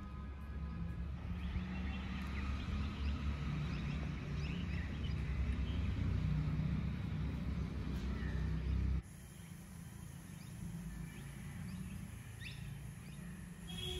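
Outdoor ambience: a steady low rumble with scattered faint bird chirps. The rumble drops away abruptly about nine seconds in, leaving quieter background with the chirps.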